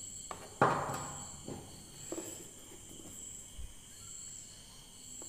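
Handling noise as cables are moved about at the back of a speaker cabinet: one sharp knock about half a second in, then a few light clicks and rustles. A steady high-pitched whine runs underneath.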